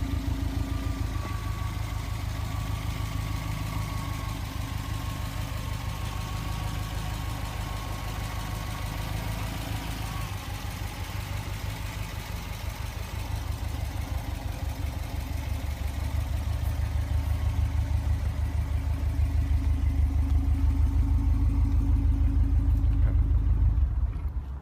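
Subaru STI turbocharged flat-four engine idling steadily, freshly rebuilt with a new turbocharger after a spun bearing. It grows somewhat louder in the second half and drops away suddenly just before the end.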